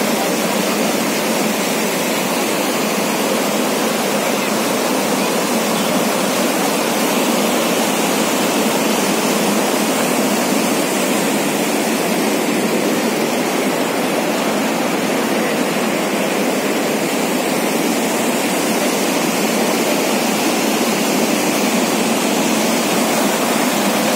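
Floodwater from a breached lake rushing in a torrent, turbulent white water. The loud, steady rush of water holds at one level throughout.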